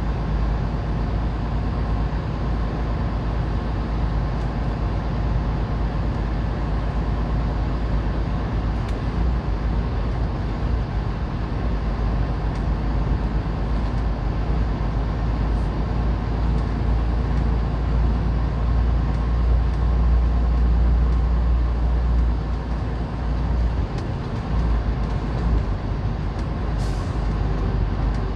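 Semi truck's diesel engine running, heard from inside the cab as a steady low rumble.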